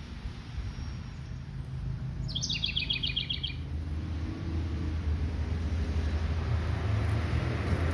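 A songbird sings one quick trill of about ten repeated notes, lasting just over a second, over a steady low rumble.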